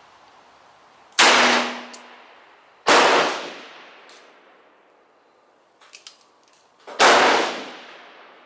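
Three shots from a single-action .44 Special Bisley revolver, fired one-handed, each with a fading echo. The second comes under two seconds after the first, and the third about four seconds later. A few faint clicks sound just before the third shot.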